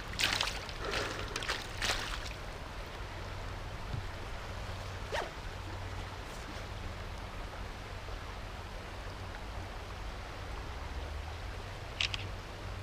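River water flowing steadily over a shallow gravel bed, with a few short splashes in the first two seconds, a sharp click about five seconds in and a brief rustle near the end.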